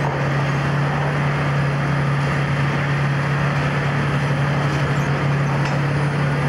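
Steady low diesel drone and machinery noise of a track renewal train working slowly along the track.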